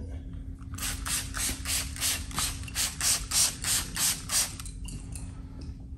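Plastic trigger spray bottle squeezed rapidly, about four squirts a second for three and a half seconds, each squirt a short hiss of water spraying onto a stainless steel toolbox top.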